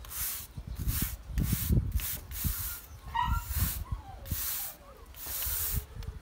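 Paintbrush strokes swishing over the gate in a loose, repeated rhythm. From about halfway through, a dog whines in one long, wavering tone that falls in pitch.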